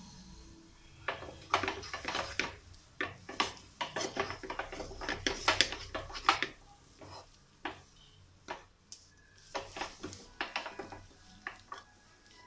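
Irregular clinks and scrapes of kitchenware as a plastic bowl is handled and scraped against a steel pan, thickest in the first half and sparser after.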